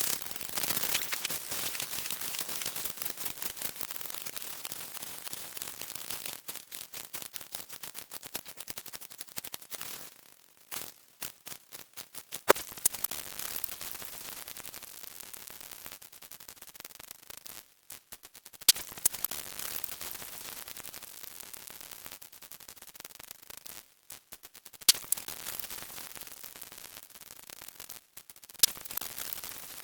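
Harsh electronic static-like noise full of rapid crackling clicks, with a sudden loud crack every few seconds and brief drop-outs between stretches.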